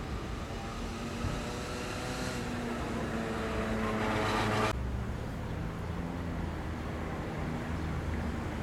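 A distant engine's droning hum over a steady low rumble, growing louder and slightly higher in pitch before cutting off suddenly a little past halfway.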